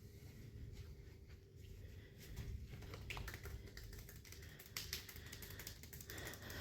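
A quick run of light clicks and crackles begins about two seconds in, several a second, over a faint low hum.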